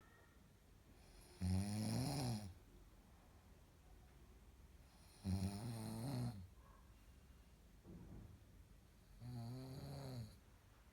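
A man snoring in deep sleep: three snores about four seconds apart, each a buzzing tone lasting about a second, with a faint breath between the second and third.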